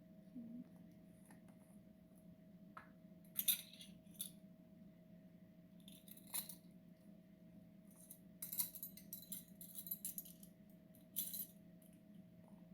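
Scattered light clinks and taps of metal measuring spoons against a glass mixing bowl while spices are measured in, with a quick run of clinks partway through, over a faint steady hum.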